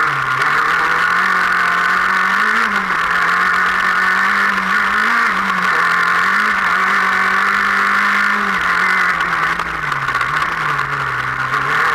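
Off-road race car's engine running hard, heard from inside the cockpit, its pitch holding high with small rises and dips and easing off about eight and a half seconds in.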